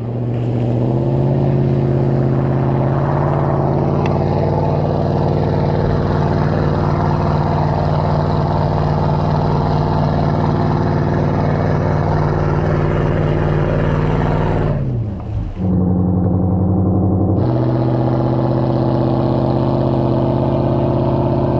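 Off-road pickup truck's engine held at steady high revs under load as it churns through deep mud and water. About 15 seconds in the revs drop briefly, then the engine settles back to a steady high pitch.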